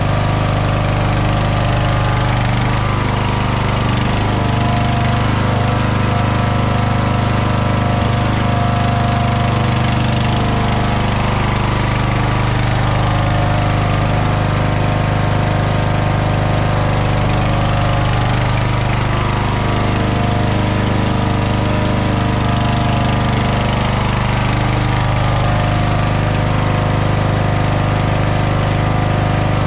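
Toro LX460 lawn tractor's engine running steadily.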